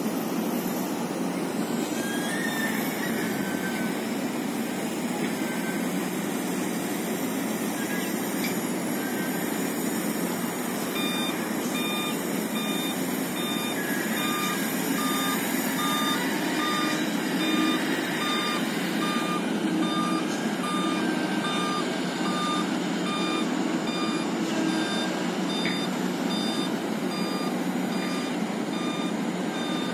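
Diesel engines of dump trucks and other heavy yard machines running steadily. From about a third of the way in, a vehicle's reversing alarm beeps repeatedly at an even pace.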